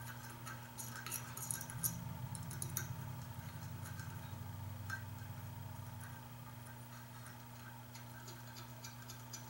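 Light, scattered clicks and clinks of small aluminum and steel parts of an RC car work stand being handled and fitted together, most frequent in the first three seconds and again near the end. A steady low hum runs underneath.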